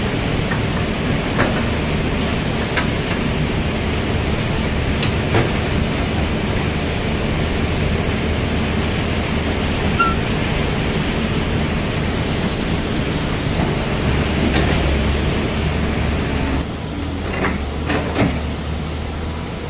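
An old hydraulic excavator's diesel engine runs steadily under working load, with scattered short knocks and clunks as the bucket works a pile of oil palm fruit bunches. The engine hum eases near the end.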